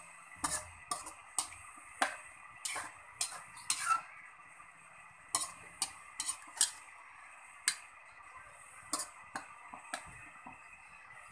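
Metal ladle stirring a thick coconut-milk stew in a thin metal pan, knocking and scraping against the pan in sharp, irregular clinks, about one or two a second.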